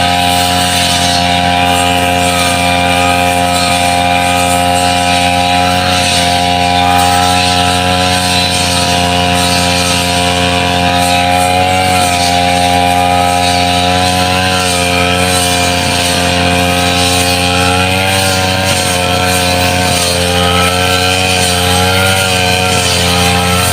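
Brush cutter engine running steadily, its pitch wavering slightly now and then.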